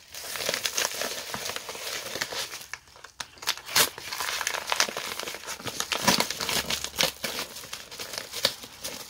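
Mail packaging around a manga volume being torn open and crumpled by hand: a dense run of crinkling and rustling with a short pause about three seconds in.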